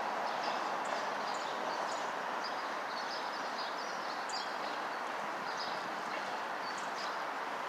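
Small birds chirping in short, scattered calls over a steady, even background rumble.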